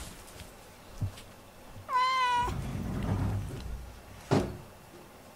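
A house cat meows once, a short call about two seconds in that holds a steady pitch. A low rumbling noise follows, then a sharp thump just after four seconds in, the loudest sound.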